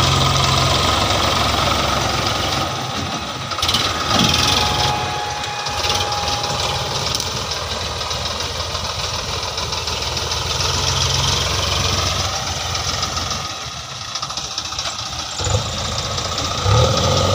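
Diesel engines of a Sonalika DI 35 tractor and a JCB 3DX backhoe loader running, the engine sound easing off and swelling again a few times.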